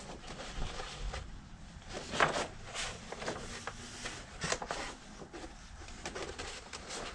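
Rolled paper movie poster crinkling and rustling as it is handled and unrolled, with a few sharper crackles.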